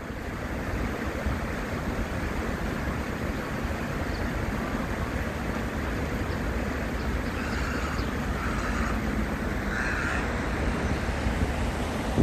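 Steady wind noise on the microphone over the flowing stream, with a few short, harsh bird calls from the flock of egrets and waterbirds about two-thirds of the way through.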